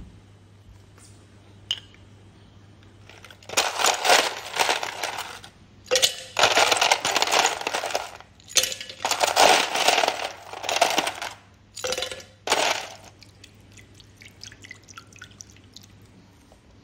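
Ice cubes tipped from a plastic tub into a stainless steel blender jug, clattering in several loud bursts over about ten seconds.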